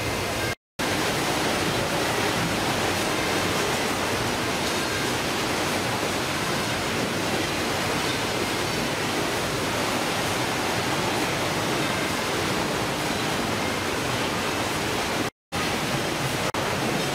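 Steady, dense rushing noise of a fish-processing line on a ship: machinery, conveyors and running water blended together. It is broken by two brief silent gaps, one about half a second in and one near the end.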